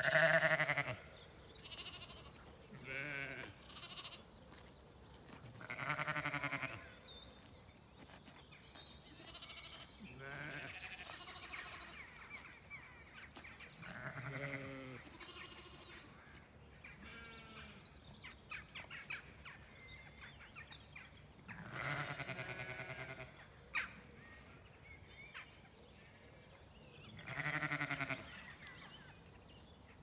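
Zwartbles sheep bleating in the pasture: a string of separate quavering bleats, about seven in all, the loudest at the very start and again near the end.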